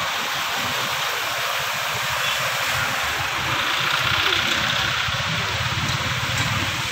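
Vehicle engines running as they drive through knee-deep floodwater, with a steady rush of water splashing around the wheels, swelling about four seconds in.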